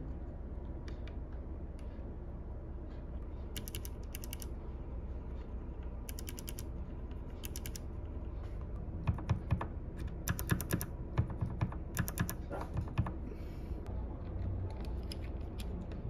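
Bare switches on a mechanical keyboard with the keycaps removed, yellow and brown switches, pressed by fingers in short runs of sharp clicks. The runs are sparse at first and come thickest and loudest from about halfway to three quarters through. The brown switches are a bit louder and clicky than the yellow ones.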